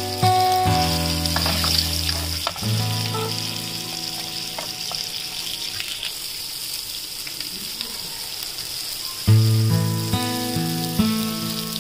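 Masala-coated boiled eggs frying in hot oil in a grill pan: a steady sizzle, with a click or two of metal tongs against the pan. Background music with sustained notes plays over it, loudest at the start and again from about nine seconds in.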